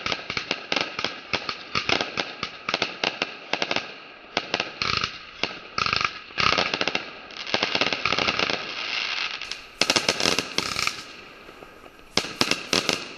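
Fireworks cake firing a rapid barrage of shots, several a second, with crackling star bursts. The firing comes in clusters, loudest about ten seconds in, and thins out near the end.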